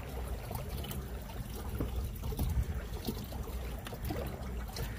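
Kayak paddling on calm river water: soft splashes and trickles of water dripping off the paddle blades, over a steady low rumble.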